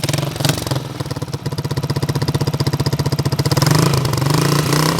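Carbureted 1999 Honda CG's single-cylinder four-stroke engine running through its original exhaust: an even idle, then from about three and a half seconds in it gets louder and its speed rises and falls unevenly.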